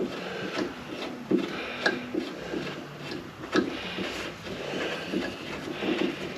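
A 6 mm hand tap being turned down a threaded hole in the truck's metal, chasing out the old threads: irregular scraping and rubbing with a few sharp clicks.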